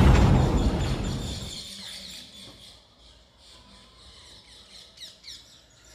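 Intro sound effect: a loud explosion-like blast that fades away over about two seconds, followed by faint, quick high chirps.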